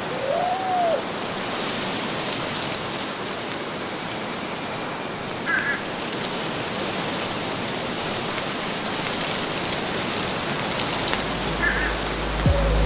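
A steady rushing noise like flowing water, with a short rising-and-falling tone at the start and a couple of faint chirps; a low hum swells in near the end.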